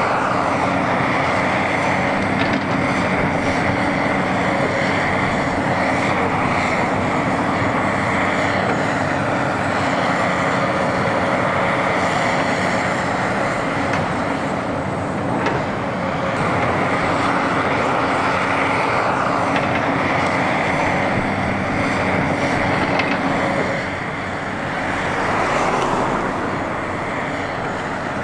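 A steady, loud engine drone with a constant low hum, running on without a break.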